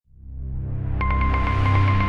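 Electronic synthesizer music fading in: a low bass drone, joined about halfway through by a fast repeating pattern of short high notes at roughly eight a second.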